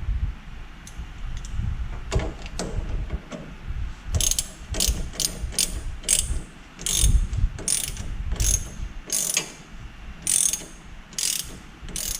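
Hand ratchet wrench clicking in repeated strokes, about two a second from about four seconds in, as a bolt is run down. A few scattered clicks come earlier.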